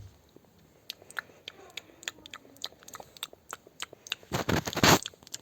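Pretend eating noises made while a toy is spoon-fed: scattered small clicks and smacks, then a louder rustling noise lasting about half a second, about four seconds in.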